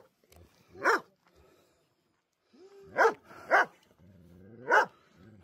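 A dog barking, four short sharp barks, upset at a person swinging on a swing.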